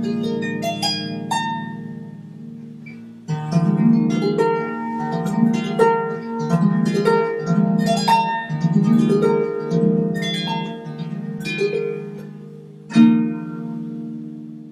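Harp playing a bell-like piece: quick plucked high notes over repeated ringing low notes. There is a short lull about three seconds in, then the playing resumes. It closes with a final struck chord that rings out.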